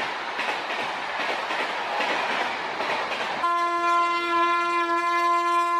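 Freight train tank wagons rolling past with a rushing clatter of wheels on the rails. About three and a half seconds in, a steady single-pitched train horn blast starts and holds, as the rolling noise drops away.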